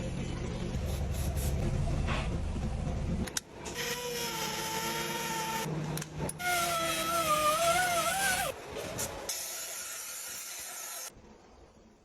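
Air-powered shop tools at work: a low steady hum, then hissing air with a whining tone that wavers in pitch, heard in two spells of a couple of seconds each. The sound drops away near the end.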